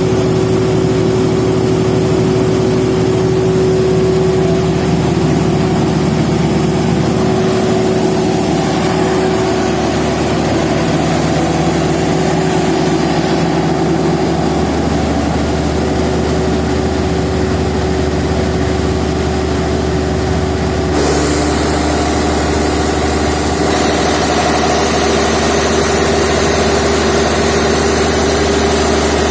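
Large 600 kVA diesel generator set running steadily. About two-thirds of the way through, its note shifts and a high whine comes in, and it grows slightly louder soon after.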